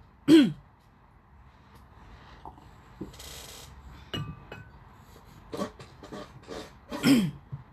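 A ceramic cup is set down with a short ringing clink about four seconds in, just after a brief hiss. A few scattered spoken syllables come before and after it.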